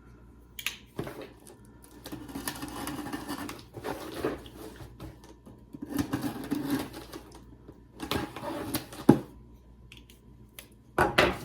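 A cardboard shipping box being opened by hand: several bursts of rustling and scraping, with a sharp click about nine seconds in.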